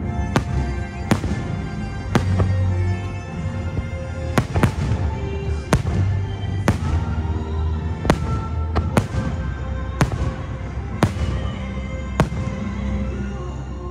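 Fireworks shells bursting in sharp bangs, about a dozen of them at roughly one a second, over the fireworks show's music soundtrack.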